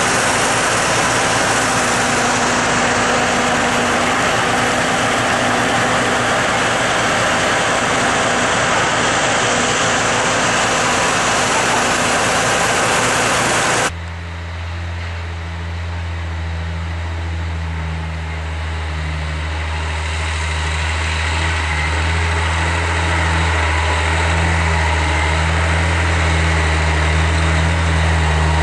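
Log truck engine running with a broad, even noise for the first half. About halfway through it changes abruptly to a steady low idling hum that grows a little louder toward the end.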